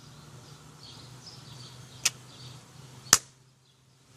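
Toy paper caps struck with a rock and exploding: two sharp cracks about a second apart, the second louder.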